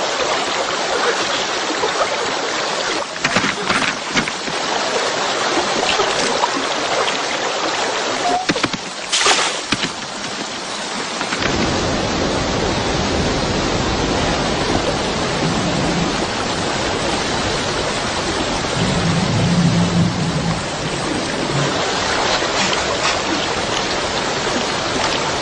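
Fast-flowing river water rushing over rocks in a steady rush; about eleven seconds in the sound grows fuller and deeper.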